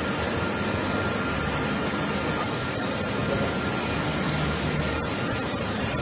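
Steady machinery noise in a forge shop, with a forklift's engine running at a low hum; no hammer blows stand out.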